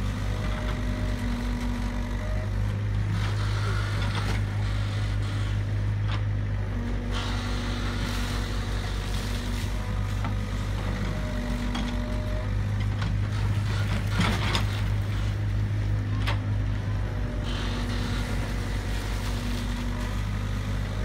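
Tracked excavator's diesel engine running steadily with a deep rumble, and a higher hydraulic whine that comes and goes in spells of a few seconds as the boom and bucket work. A brief, louder burst of noise comes about fourteen seconds in.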